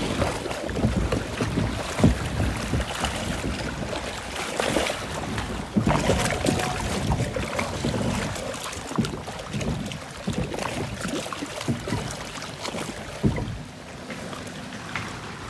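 Water-ride boat moving along its channel: rushing, splashing water and low rumble, with wind buffeting the microphone and scattered knocks, the sharpest about two seconds in. Quieter near the end.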